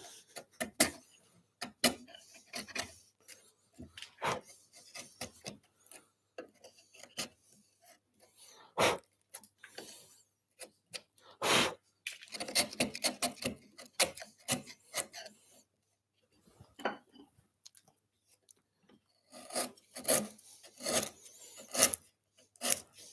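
Bench chisel pared by hand through pine in the waste of a halving joint: a series of short, irregular scraping cuts and clicks of steel on wood, coming in quicker runs about halfway through and again near the end.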